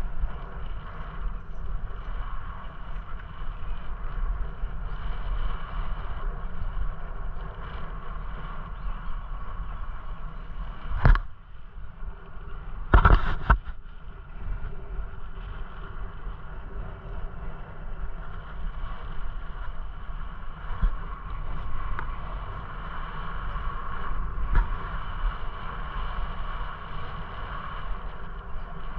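Wind rumbling on the microphone and tyre noise from a camera riding a bicycle along a paved path. A single sharp knock comes about 11 seconds in, and a short rattle of knocks about two seconds later.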